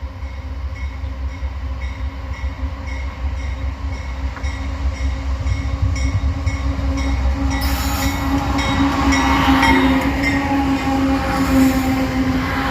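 Diesel freight locomotive approaching in dynamic braking, its dynamic-brake cooling fans giving a steady hum over a low rumble, with little sound of the engine itself. About seven or eight seconds in, wheel and rail noise swells as the train draws near, and the whole sound grows louder.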